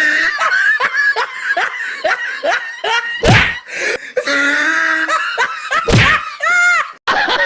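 Repeated bursts of laughter, with a sharp thump about three seconds in and a short steady tone a little past halfway.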